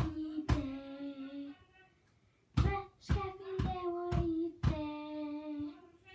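A boy singing long held notes without words, with sharp knocks between the notes. The singing breaks off for about a second near the two-second mark.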